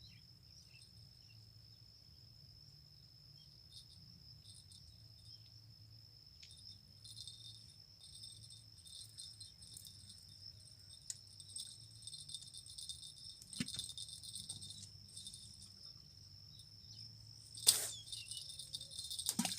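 Crickets and other insects chirring steadily at a high pitch, growing fuller about seven seconds in, with a few sharp clicks, the loudest one near the end.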